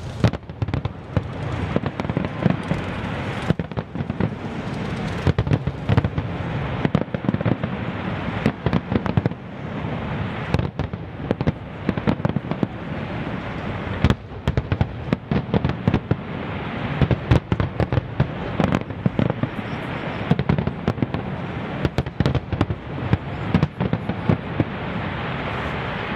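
Fireworks display: aerial shells bursting in rapid, irregular bangs and crackles over a steady low rumble, thinning out near the end.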